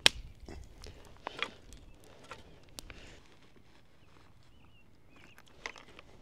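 Rustling and scattered clicks and knocks of camp gear being handled, with a sharp click right at the start and a short faint squeak about four seconds in.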